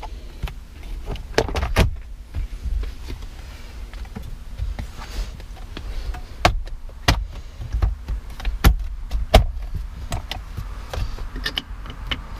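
Plastic interior trim clicking and knocking as a 4Runner's center console trim panel is handled and pressed down into its snap clips: an irregular run of sharp clicks and snaps, a few louder ones around the middle, over a low rumble.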